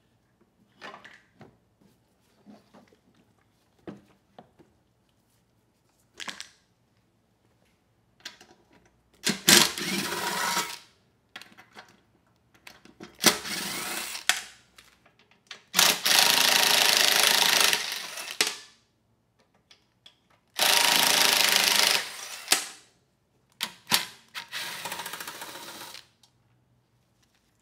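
Small battery-powered blower run in five bursts of one and a half to three seconds each, a steady rushing hiss of air with a thin motor whine, blowing dirt off a lawn mower engine. Light handling clicks come before the first burst.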